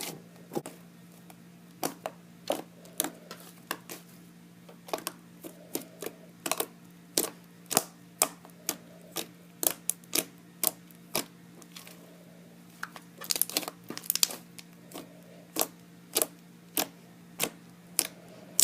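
Fluffy shaving-gel slime being squeezed and stretched by hand, giving sharp clicks and pops from trapped air, about one or two a second with a quick flurry near the middle.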